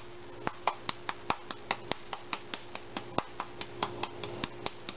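A hand smacking the bottom of an upturned pepper shaker over and over to shake out the pepper: sharp slapping taps, about five a second.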